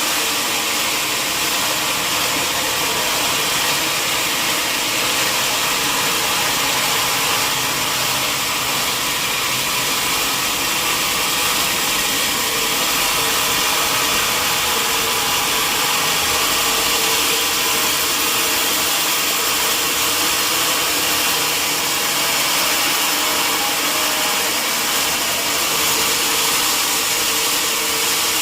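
Sawmill machinery running steadily: a continuous high hiss with a faint even hum underneath, level throughout.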